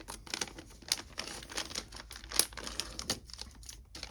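Plastic packaging bag being handled and crinkled in the hands, an irregular crackling rustle.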